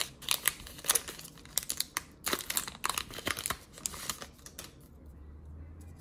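Foil wrapper of a Pokémon booster pack crinkling and tearing as it is opened, in a run of quick crackles that stops about five seconds in, leaving only a faint low hum.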